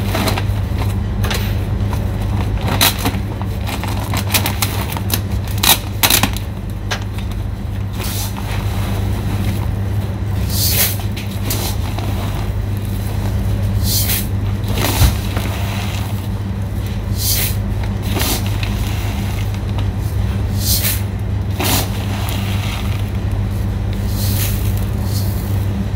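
Woven plastic sacks and plastic bags crinkling and rustling as they are handled, in short irregular bursts over a steady low machine hum.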